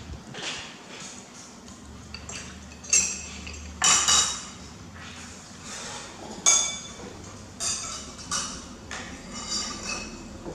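Metal spoons clinking and scraping against ceramic plates and bowls during a meal: several sharp clinks with a short ring, a second or so apart.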